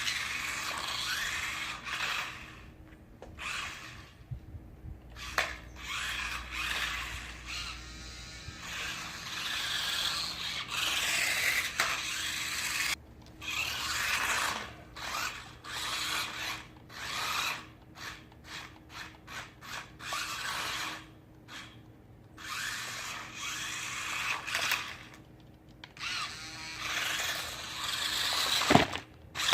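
Small electric drive motors of a Sharper Image Spin Drifter 360 toy RC car whirring in stop-start bursts as it is driven, with a quick run of short bursts in the middle.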